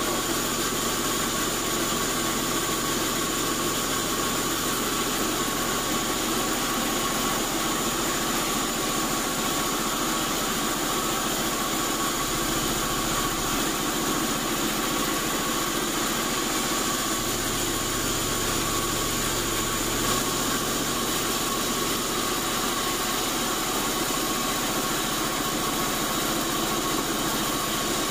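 Sawmill band saw running steadily as its blade cuts lengthwise through an old acacia timber on the carriage, a constant machine hum with a steady high whine.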